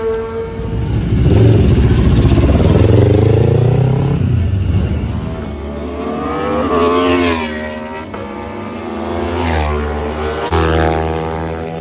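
Sport motorcycles at speed on a race track, engines revving hard: a loud run early on, then two more bikes passing one after the other, each engine note climbing and then dropping away.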